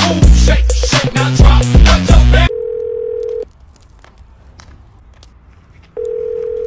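Music with a heavy bass beat and a voice, cutting off about two and a half seconds in. Then a telephone line tone, one steady beep-like tone, sounds for about a second, stops, and comes back for the last second or so.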